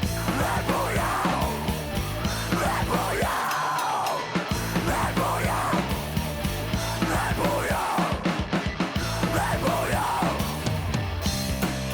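Heavy rock music with a lead vocal, sung in Italian.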